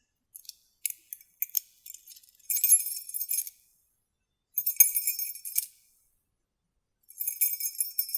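Small metal objects being shaken and jingling in three bursts of about a second each, after a few light clicks.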